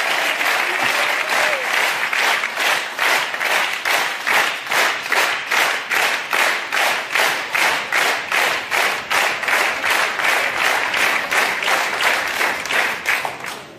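Studio audience applauding, settling after a second or two into rhythmic clapping in unison at about two claps a second.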